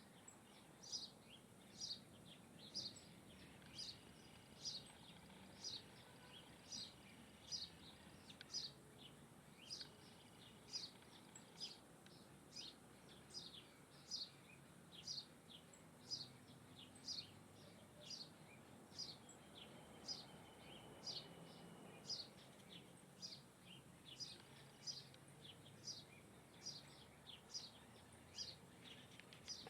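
A small bird calling over and over, a short high chirp that drops in pitch, about two a second, steady and unbroken.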